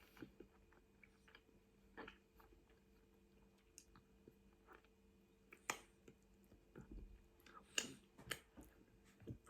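A person chewing food close to the microphone: faint, wet mouth sounds with a few sharper clicks and smacks scattered through, the loudest near the end.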